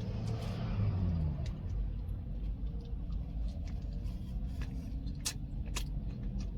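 Chewing a mouthful of burger, with a few short wet mouth clicks, over the steady low hum of an idling car engine.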